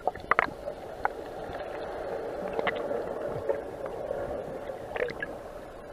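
Sea water heard from below the surface: a steady dull wash, broken by a few short clicks.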